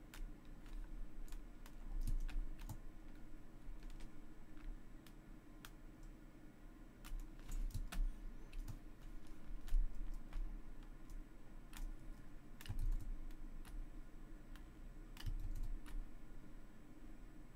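Scattered, irregular clicks and taps of a computer keyboard and mouse at a desk, over a faint steady low hum.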